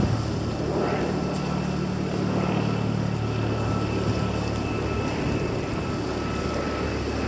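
An engine drones steadily, a low hum with a faint high whine above it.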